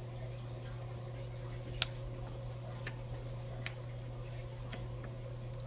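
A few scattered sharp clicks as the pages of a hardback picture book are handled and turned, the loudest about two seconds in, over a steady low hum.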